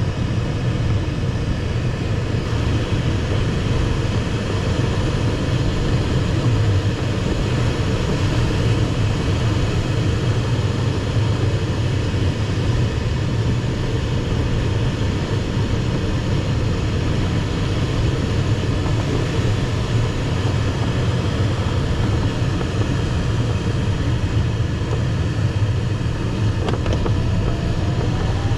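Steady rush of airflow over the canopy and fuselage, heard inside the cockpit of an ASW 15 sailplane in gliding flight. The rush is even, with no engine.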